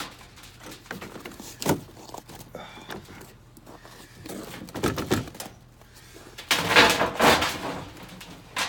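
Scattered knocks and clicks of a truck door and the things inside the truck being handled, with a sharp knock about two seconds in and a stretch of scraping and rustling about two-thirds of the way through.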